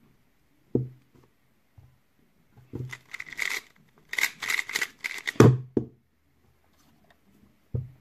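A plastic 2x2 speedcube turned very fast for about three seconds: a dense run of sharp clacks and rattles. Dull thuds of hands on a speed timer come before it and right at its end, and the thud that stops the solve, about five and a half seconds in, is the loudest sound.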